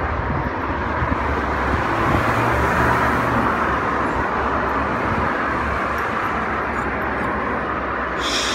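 Steady hum of road traffic, cars driving past.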